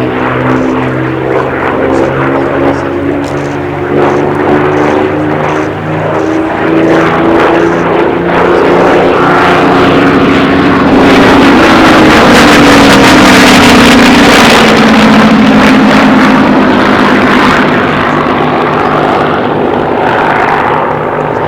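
Rolls-Royce Merlin V12 engine of a Second World War fighter flying past. The engine note builds to its loudest about halfway through, drops in pitch as the aircraft passes, then fades near the end.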